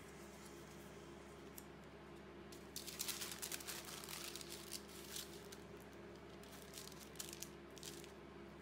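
Thin printed collage paper rustling and crinkling as it is handled and laid flat over the painting, with a burst of crackly rustles about three seconds in and a few lighter crinkles near the end.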